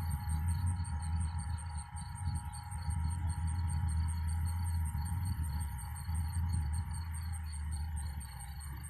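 An insect, likely a cricket, chirping steadily at about five chirps a second over a constant low rumble.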